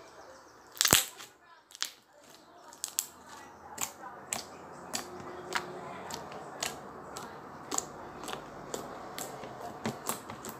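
Slime being pressed and squished by hand, giving short sharp clicks and pops from trapped air, about twice a second; the loudest pop comes about a second in.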